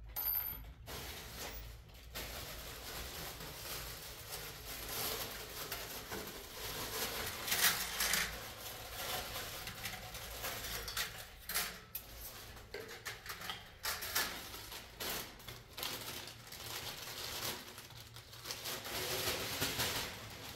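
Irregular rustling and light knocking and clatter of things being handled, coming and going without a steady rhythm.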